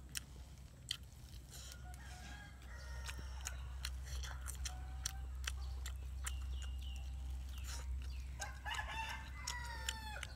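Domestic chickens calling: a rooster crows, loudest about eight seconds in, with shorter calls earlier. Scattered sharp clicks of eating and tearing meat are heard over them.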